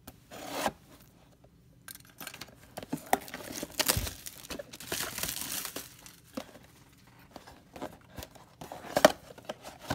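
Cardboard trading-card box being slit open and its lid worked loose: scraping and tearing of tape and cardboard with crinkling, and two sharp knocks against the box, about four and nine seconds in.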